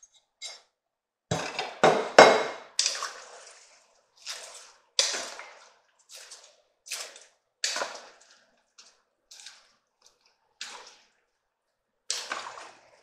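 Chopped cabbage dropping by the handful into a pot of soup: a string of separate soft splashes and thuds, the loudest cluster about two seconds in. Near the end a wooden spoon stirs the pot.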